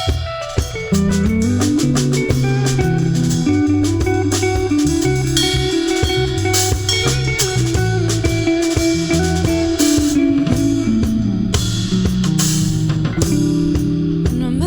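Live R&B band playing an instrumental break: a guitar line over bass guitar and a drum kit with steady cymbal strikes.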